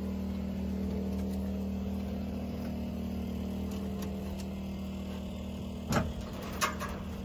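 A nearby engine idling with a steady, even hum, and two short knocks near the end.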